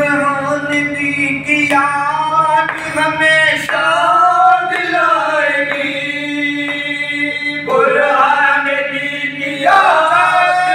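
A group of men singing a matami noha (Muharram lament) together, with long held notes that bend and slide in pitch.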